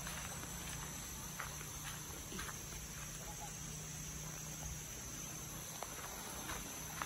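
Steady high-pitched drone of insects, with a few faint scattered clicks over it.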